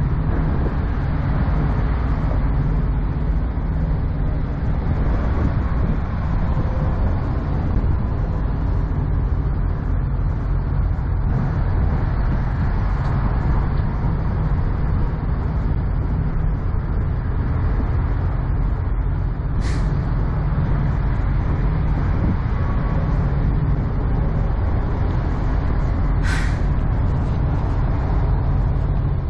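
Heavy diesel semi-truck engine idling with a steady low rumble. Two short hisses of air release, about 20 and 26 seconds in.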